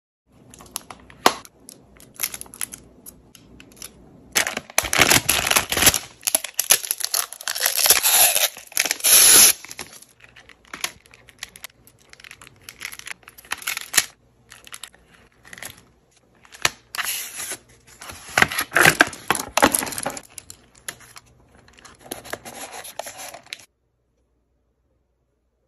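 Close-up unboxing handling sounds: plastic packaging and film being torn and crinkled in bursts, with scattered sharp clicks and taps from a phone and its clear plastic case being handled.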